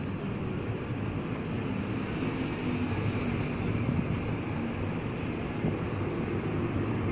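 Steady running noise of a car driving slowly, engine and tyres heard from inside its cabin, a low rumble with no breaks.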